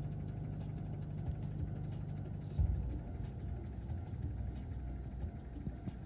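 Low rumble of a car engine idling, heard from inside the cabin while stopped at a railway crossing. A brief louder thump comes about two and a half seconds in, after which the rumble is lower.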